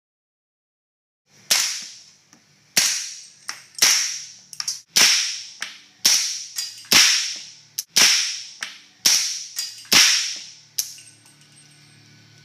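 Suppressed AR-pattern rifle in .300 AAC Blackout, fitted with an AAC 762-SDN-6 suppressor, fired semi-automatically: about ten sharp cracks roughly a second apart, starting about a second and a half in, each with a short ringing tail, with lighter clicks between some shots.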